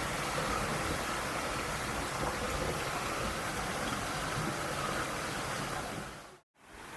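Mountain valley stream rushing steadily over rocks. The sound fades out to silence for a moment about six and a half seconds in, then comes back.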